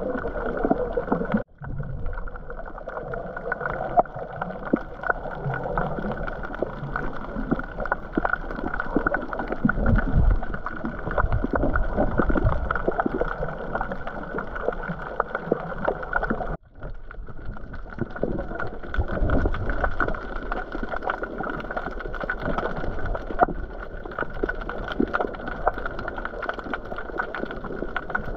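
Muffled water noise, a dense rushing and gurgling with irregular low surges, cut off abruptly twice, about a second and a half in and about sixteen seconds in.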